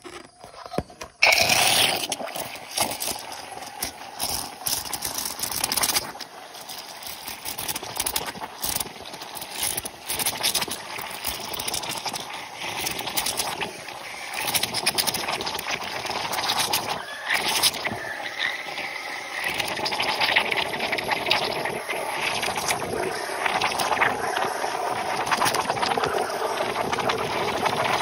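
Steam wand of a De'Longhi espresso machine frothing milk in a stainless steel pitcher. It bursts on about a second in, then keeps up a steady hiss with many small pops and sputters as air is drawn into the milk.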